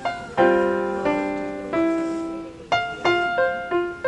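Background piano music: a held chord, then single notes played about three a second.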